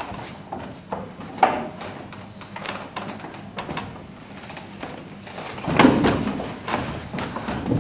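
Dancers' bodies shifting and rolling on a wooden slatted floor: scattered knocks, bumps and scuffs of skin and limbs against the boards, with a sharp knock about a second and a half in and a louder run of bumps near the end.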